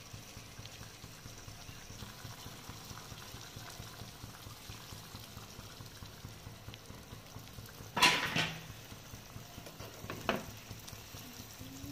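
Paneer and capsicum curry, thinned with water, bubbling and sizzling steadily in a pan, with a steel ladle clattering against the pan once loudly about eight seconds in and once more, lighter, about two seconds later as it is stirred.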